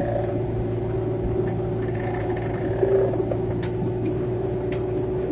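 Excavator's diesel engine running steadily: a low rumble with a steady whine over it, and a few short sharp clicks between about one and five seconds in.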